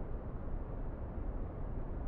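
Steady, deep, muffled white noise played to lull a baby to sleep, a constant rushing sound with most of its weight in the bass and hardly any hiss in the treble.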